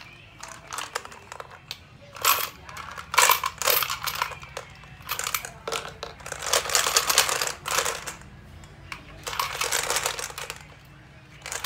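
Small red plastic toy gumball machine being tipped and turned by hand, its wrapped candies rattling and clicking against the plastic globe and base in three spells of rattling.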